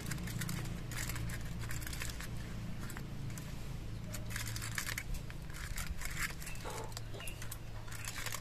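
Aluminium foil crinkling in irregular crackles as it is pressed and folded over the mouths of paper cups, with a steady low hum underneath.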